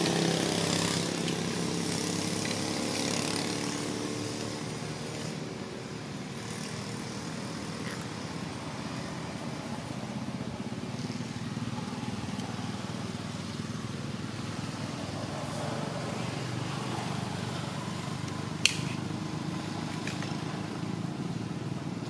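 A motor vehicle's engine running and fading away over the first few seconds, then a steady background hum, with one sharp click late on.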